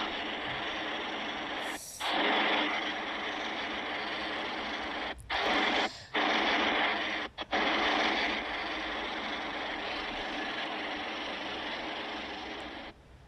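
Custom monster roar sound effects for a polar-bear kaiju: a run of harsh, noisy roars separated by brief breaks, the last one long and fading out just before the end.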